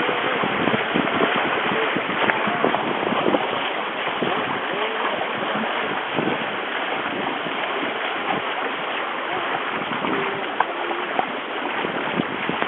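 Water rushing and splashing along the hulls of a proa under sail, a steady rush flecked with small splashes, mixed with wind on the microphone.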